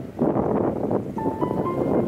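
Background music with held piano notes coming in about halfway through, over a loud, steady rushing noise.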